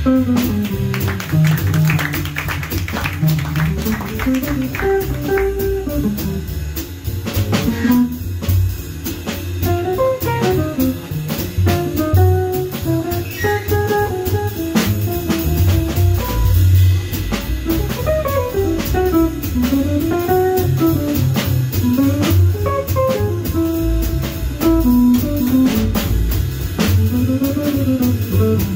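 Jazz guitar solo on a hollow-body archtop electric guitar, playing winding single-note lines over double bass and a drum kit with cymbals; the trumpet is silent.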